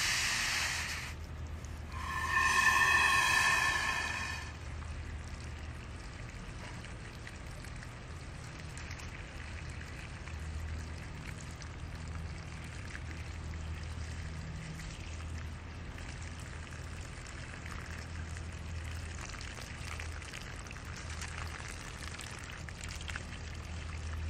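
Water running in a steady stream out of the open end of a copper pipe and splashing onto gravel, the flow resuming once the Foley catheter balloon that plugged the pipe is deflated and pulled. A short whistling tone sounds about two seconds in.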